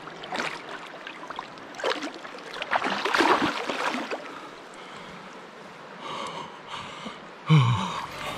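Water splashing as a released steelhead kicks out of the hands and swims off through the river shallows, loudest about three seconds in. Near the end a person lets out a short, loud breathy exclamation.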